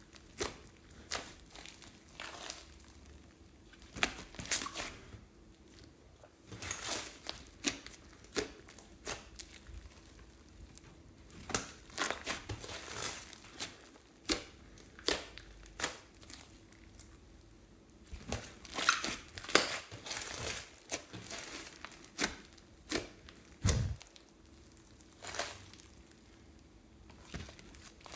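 A large mass of slime mixed with foam beads being kneaded, pressed and stretched by hand: irregular crackling, squelching and snapping bursts, with a dull thump near the end.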